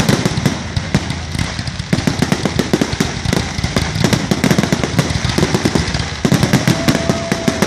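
Aerial fireworks finale barrage: many shells bursting in rapid, overlapping bangs and crackles, growing denser about two seconds in. A faint steady tone sounds near the end.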